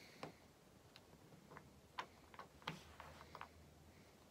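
A few faint, irregular metal clicks of a screwdriver tip seating in a screw head as the screw and brass doorstop are held against the skirting board.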